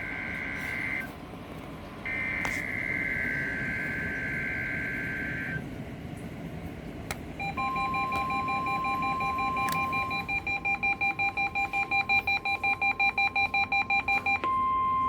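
NOAA Weather Radio SAME test signal. Buzzy two-tone digital header bursts sound twice, then electronic alert tones take over. A steady tone is joined by fast pulsing beeps from about ten seconds in, and a single steady tone sounds near the end.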